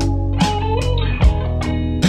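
Background music: guitar over a steady beat of about two and a half hits a second.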